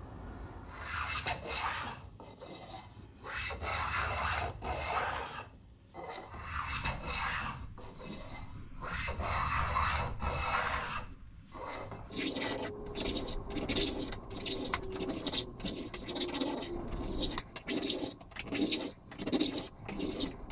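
A tiny Japanese block plane shaving Australian ironbark, taking fine curled shavings. Each stroke makes a scraping hiss: a few long strokes, then from just past halfway a run of short quick strokes, about two a second.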